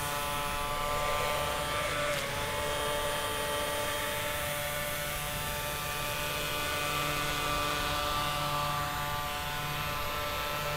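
Small 3-volt battery-powered DC toy motor spinning a plastic propeller fast, giving a steady electric hum with several held tones.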